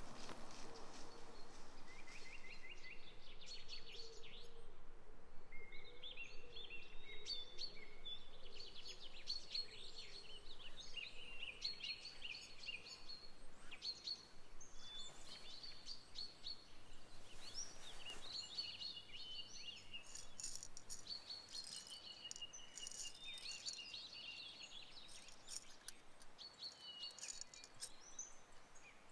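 Small birds chirping and trilling in woodland, many short quick calls overlapping over a faint outdoor background.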